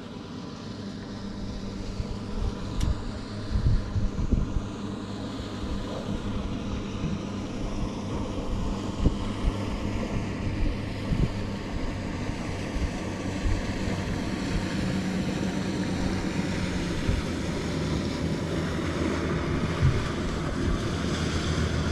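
Motorboat engine running steadily, growing gradually louder as the boat approaches at speed, with wind buffeting the microphone.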